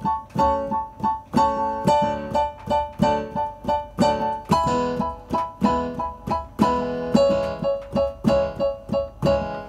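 Piano sound from a digital keyboard workstation, played with both hands: repeated short chords in a steady rhythm of about two to three a second, moving to a new chord about halfway through.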